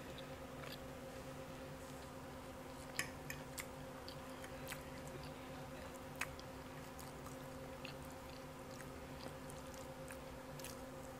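Quiet eating: a person chewing and working a fork through fried catfish, with a few light clicks of the fork on the plate, most of them between about three and six seconds in. A steady low hum sits underneath.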